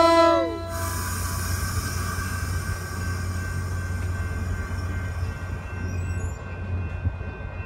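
Caltrain commuter train passing: its horn chord cuts off within the first second, then the bilevel passenger cars roll by with a steady rumble and a thin, steady high whine.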